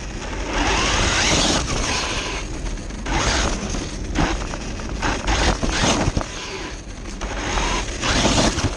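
Traxxas 1/16 Mini E-Revo RC truck driving over coarse asphalt, heard from a camera riding on the truck: loud rolling tyre and drivetrain noise that rises and falls in repeated surges.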